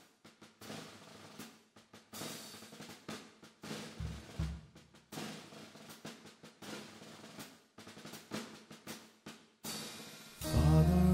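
A series of snare drum rolls, each a second or so long, with one deep bass drum hit about four seconds in, opening a congregational hymn. Near the end the band comes in with bass and pitched instruments.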